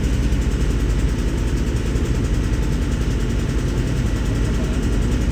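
Boat's engine running steadily, a continuous low rumble.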